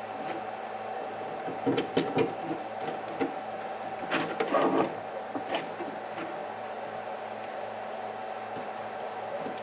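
Small hardware being handled by hand while a light bar is fastened with a small nut: two short clusters of clicks and rattles, about two seconds in and again about four seconds in, then a few single ticks. A steady hum runs underneath.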